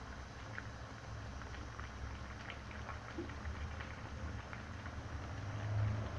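Eggplant stew in tomato sauce simmering in a pan, bubbling with small scattered pops and crackles over a steady low rumble.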